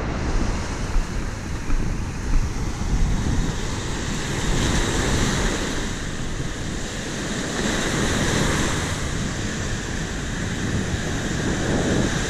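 Surf breaking and washing up a sandy beach in repeated swells, with wind rumbling on the microphone.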